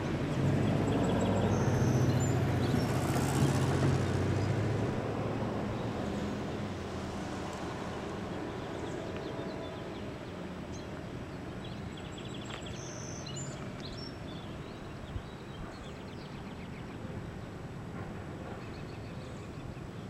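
Freight train of autorack cars rolling away on the rails, its rumble and wheel-on-rail noise loudest near the start and fading steadily after about five seconds.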